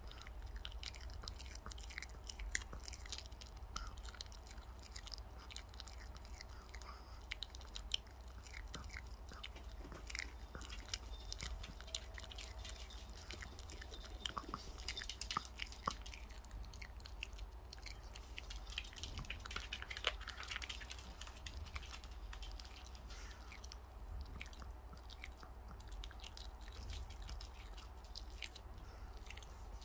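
A small dog chewing and biting on a piece of raw chicken held in a hand, with many short, irregular clicks and crunches of its teeth on the meat.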